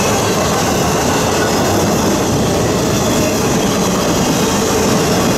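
Double-stack intermodal freight train's well cars rolling past close by: a steady noise of steel wheels running on the rails.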